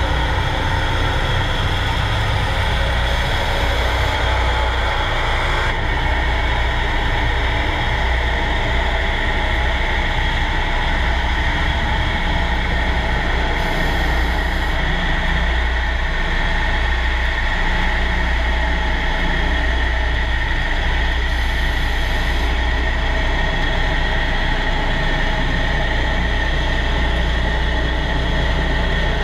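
Steady mechanical drone heard underwater during propeller polishing work, with a strong low hum and a steady high whine. The upper tone shifts abruptly about six seconds in.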